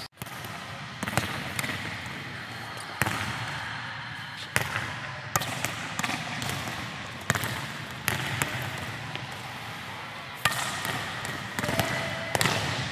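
Volleyballs being struck by hand in passing and setting drills: sharp smacks every second or two, echoing around a sports hall.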